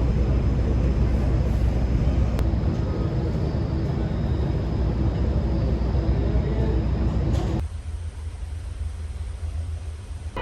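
Steady low vehicle rumble. About three-quarters of the way through it changes abruptly to a quieter, deeper drone.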